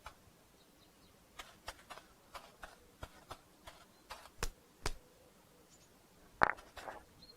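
A series of light, irregular clicks or taps, about a dozen over three or four seconds, then a single louder click near the end.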